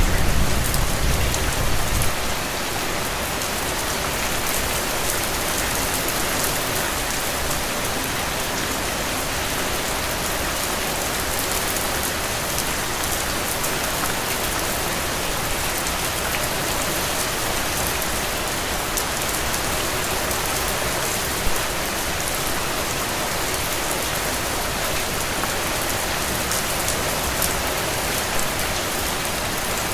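Heavy, steady rain falling on soil and puddles: a dense, even hiss of countless drops. A low rumble sits under it for the first couple of seconds and then stops.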